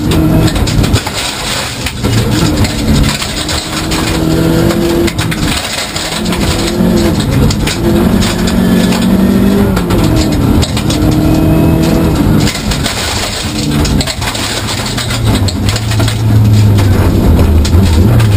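Rally car at full stage pace on gravel, heard from inside the cabin: the engine revs climb and drop back again and again through gear changes and lifts, over a constant rattle and clatter from the gravel road surface and the car's stripped shell.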